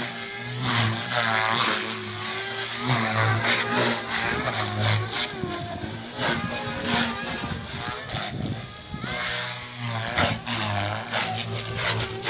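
SAB Goblin 380 electric RC helicopter flying aerobatics: a steady rotor hum with a whooshing blade chop, and a motor and gear whine that swoops up and down in pitch every second or two as it manoeuvres.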